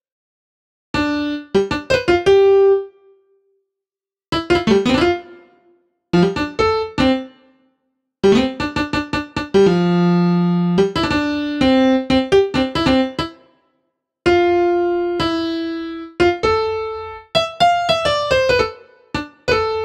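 Solo piano-like keyboard music: short phrases of struck notes that ring and fade, broken by brief silences, with a longer low chord held in the middle.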